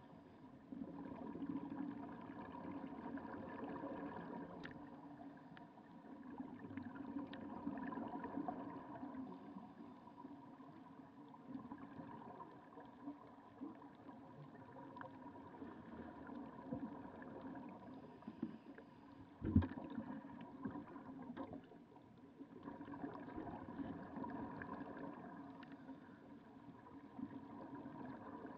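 Underwater ambience of snuba divers breathing from surface-fed regulators: faint rushing and bubbling of exhaled air that swells and fades every several seconds, under a faint steady hum. A single sharp knock comes about two-thirds of the way through.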